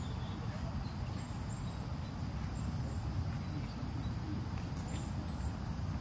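Outdoor ambience: a steady low rumble with short, high insect chirps scattered through it.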